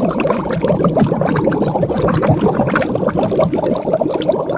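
Water pouring and gurgling steadily, a continuous stream of bubbling splashes.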